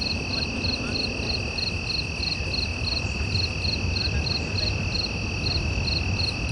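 Night insects chirping: a steady high trill with a second insect chirping about three times a second over it. A low rumble runs underneath.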